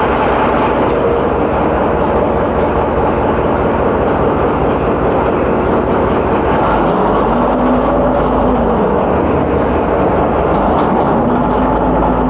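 Loud, steady shipboard machinery noise with a low pulsing throat; a humming tone comes in about seven seconds in, rises and falls away, and comes back near the end.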